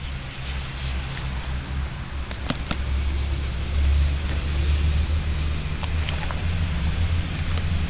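A steady low rumble that swells to its loudest about halfway through, with a few sharp snaps and crackles as hands break apart the soft, rotten wood of a dead coconut log.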